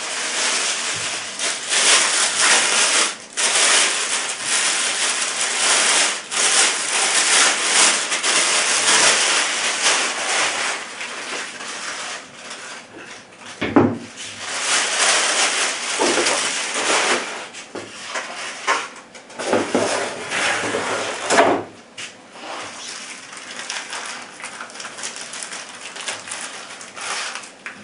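Plastic packaging crinkling and rustling, and a cardboard box being handled, as an air rifle and its parts are unpacked, with a couple of knocks of items set down.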